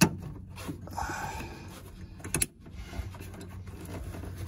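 Plastic quick-connect fittings on the fuel lines being pushed and worked onto the fuel filter by hand: a sharp click right at the start and another about two and a half seconds in, with light handling noise between.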